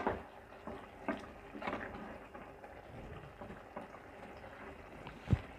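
Wooden spatula stirring wilted spinach and radish in an aluminium pot, with scattered soft knocks of the spatula against the pot over a low bubbling of the simmering liquid that the spinach has let out.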